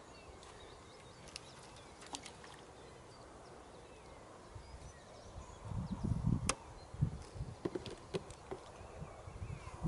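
Fishing rod and reel being handled: scattered light clicks and ticks, with a cluster of low thumps and knocks a little past halfway, over a faint outdoor background.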